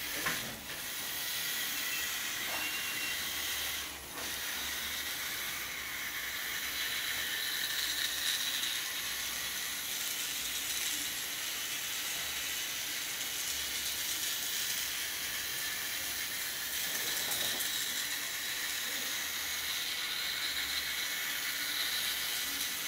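Small DC gear motors of a home-built Arduino robot car whirring as it drives and turns on a tile floor: a steady, hiss-like whir with brief dips near the start and about four seconds in.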